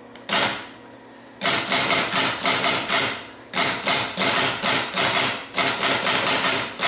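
Teletype Model 19 tape punch punching paper tape. There is a single clack, then from about a second and a half in a fast, even run of punching clacks, roughly three a second, which breaks off for a moment about three and a half seconds in and carries on.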